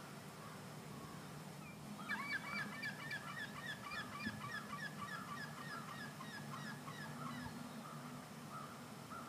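A flock of birds calling: a rapid, overlapping run of short honking calls starts about two seconds in and dies away near the end, over a faint steady low hum.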